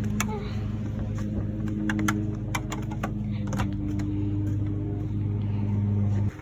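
A machine's steady low hum with scattered sharp clicks over it; the hum cuts off suddenly near the end.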